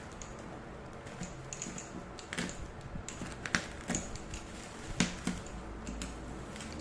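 Packaging being handled while unboxing a laptop: irregular light clicks and crinkles of cardboard and plastic, a few sharper ones about midway, over a low steady hum.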